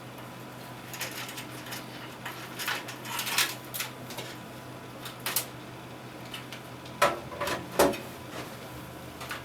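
Handling noise of PC case fan cables being threaded through a cable hole in the case: scattered rustling and scraping, with two sharp knocks about seven and eight seconds in.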